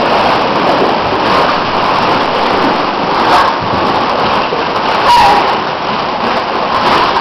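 Plastic ball-pit balls clattering and rattling without a break as children scramble through them, with fine clicks of ball against ball.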